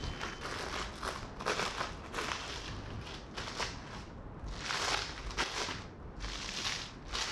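Plastic cling film crinkling and rustling in a string of short bursts as hands roll a wrapped log of cookie dough on a wooden board.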